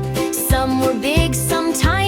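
Upbeat children's song music with a steady beat, about two beats a second, and a bouncy bass line.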